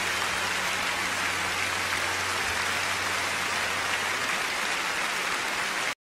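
A large audience applauding, a dense, steady clapping that cuts off abruptly at the very end.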